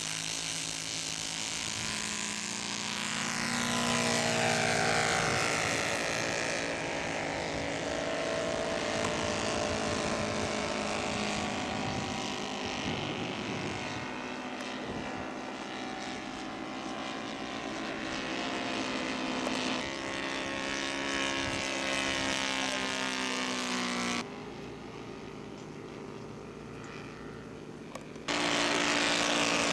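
Engines of radio-controlled scale Fokker D.VII model biplanes running hard through takeoff and flypast, their pitch rising and falling as the planes climb and pass. The sound drops abruptly in level about 24 seconds in and jumps back up about 28 seconds in.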